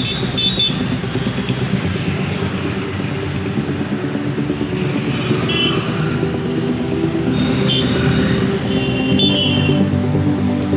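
Busy road traffic: cars, motorcycles and auto-rickshaws running past, with a steady engine hum and a few short high beeps now and then.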